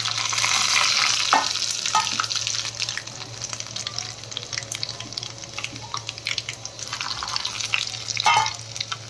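Chopped garlic, fenugreek seeds and carom seeds sizzling in hot oil in a pan, just after being added: loudest over the first couple of seconds, then settling to a quieter, steady crackling sizzle.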